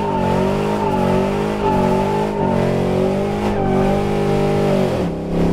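Drift car's engine pulling hard with the revs rising and falling under the throttle as the car comes out of a slide. Tyre squeal fades after about two seconds, and the revs drop sharply near the end, as at a gear change.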